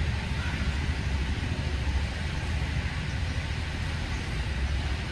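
Steady outdoor background noise: a continuous low rumble with an even hiss over it, unchanging throughout.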